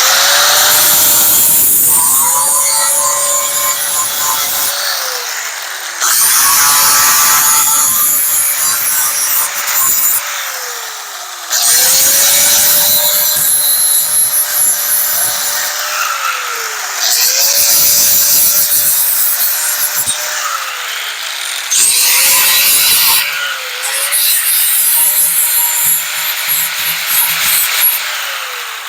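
Electric grinder grinding sheet metal in repeated passes, about five of them, its motor whine falling away each time it is let off and spins down. It is grinding the truck bed's dent down to bare metal so the stud welder's ground and pins make good contact.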